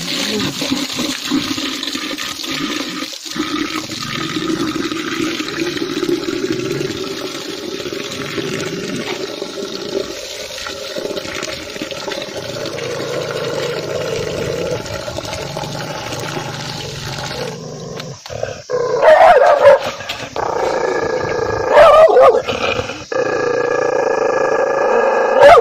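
A chained dog growling steadily, then breaking into three loud bouts of barking over the last several seconds.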